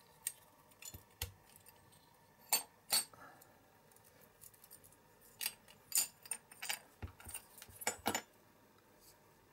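Small diecast metal and plastic parts of a toy car clicking and clinking in the hands as the car is taken apart: the body, baseplate and tinted plastic window piece knock against each other. Scattered sharp clicks, two louder ones about two and a half and three seconds in, then a quick run of clicks in the second half.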